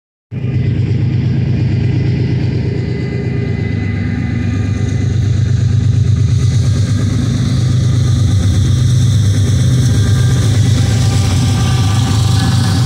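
Diesel locomotives of an approaching train, led by a GE ES44AC, running with a steady low engine drone that grows slightly louder. A higher hiss builds in from about halfway through.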